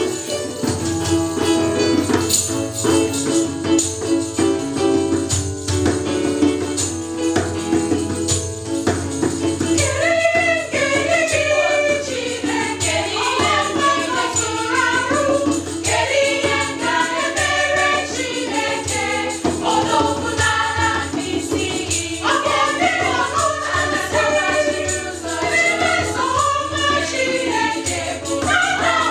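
Church choir singing an Igbo-language praise hymn, with electronic keyboard, hand drum and jingling percussion. The first ten seconds or so are instrumental, then the voices come in together.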